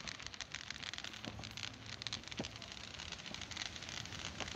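Fireworks burning off in the distance, a dense, continuous crackling of many small pops.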